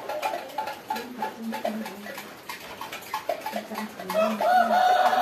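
Chickens calling: a run of short clucking notes, then a rooster crowing about four seconds in, the loudest sound.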